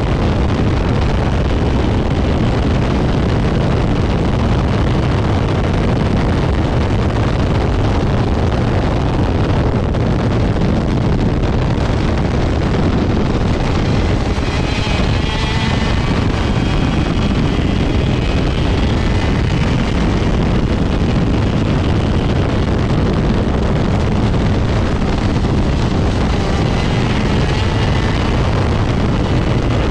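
Two-stroke 125cc shifter kart engine running at racing speed, heard through heavy wind noise on the onboard microphone; the sound is loud and steady throughout.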